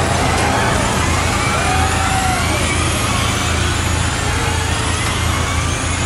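First-season Formula E cars (Spark-Renault SRT_01E) passing through a corner, their electric motors and gearboxes whining in pitches that rise and fall as they brake and accelerate. Underneath is a steady low rumble.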